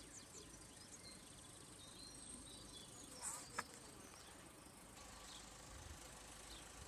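Near silence: quiet outdoor ambience with a faint, steady high-pitched hiss and a brief sharp sound about three and a half seconds in.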